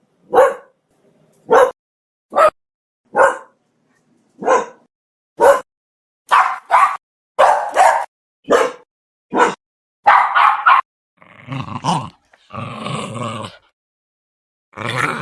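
Dog barks: single sharp barks about a second apart, then quicker, closer-spaced barks, then longer, rough, low growling sounds in the last few seconds.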